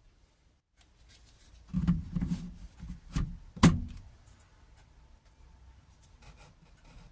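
Handling clunks and knocks of plastic against the saw body, ending in one sharp click, as a 12 V battery pack is pushed into a Parkside cordless reciprocating saw. The saw's motor does not run.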